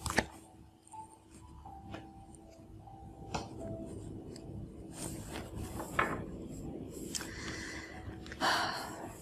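Light handling noises: a few soft taps and a short rustle near the end, over a faint steady hum.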